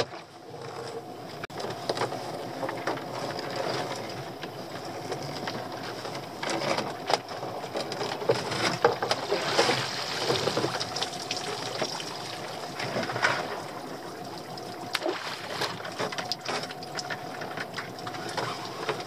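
Lobster pot being hauled up the side of a small open boat: a steady mechanical whirr with many clicks and knocks of rope and wet pot against the hull. Water splashes and streams off the pot as it comes out of the sea.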